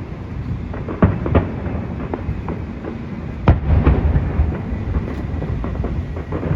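Fireworks display: several sharp bangs of shells bursting, the loudest about three and a half seconds in, over a continuous low rumble.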